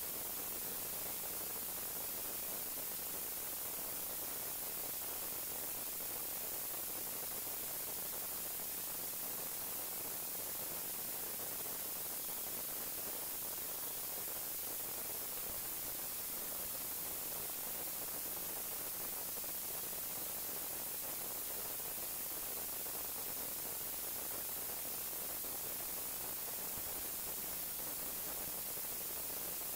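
Steady, unchanging hiss of static, with no stick-blender bursts or other events standing out.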